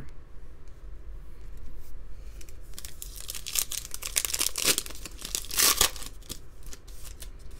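Wrapper of a 2019-20 Panini NBA Hoops Premium Stock card pack crinkling as it is handled and then torn open by hand, with the tearing loudest from about three to six seconds in.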